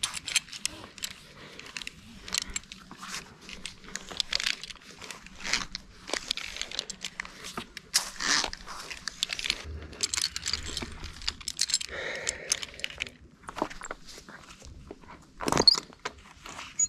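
Climbing rope and metal climbing hardware handled by gloved hands: irregular rustling, rubbing and small metal clicks, with one louder knock near the end.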